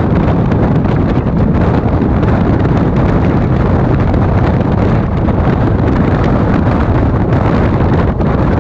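Wind buffeting the microphone over the steady rumble of a passenger train's coach running at speed, heard from a camera held out beside the coach.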